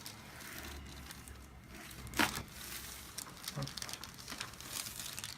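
Crinkling and rustling as a patient shifts and turns onto their back on a chiropractic treatment table, with a sharp click about two seconds in.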